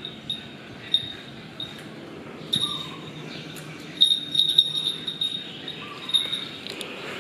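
Small metal bells tinkling in short, irregular strikes, busiest about four to five seconds in.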